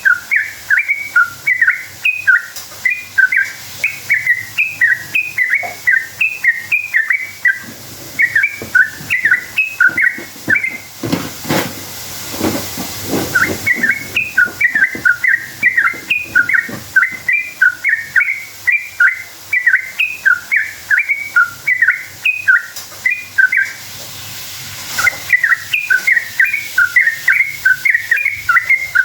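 Yellow-vented bulbul singing a long run of rapid, bubbly chirps, about four notes a second. The song breaks for about three seconds partway through and briefly again later, and a rushing hiss fills each break.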